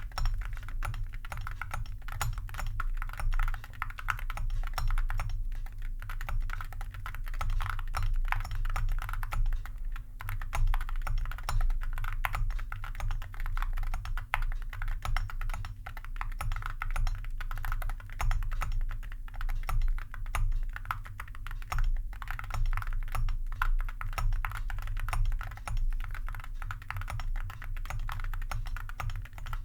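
Continuous fast typing on a Keychron mechanical keyboard with linear switches and Awekeys metal keycaps (suspected zamak zinc alloy), giving a quiet, steady clatter of keystrokes.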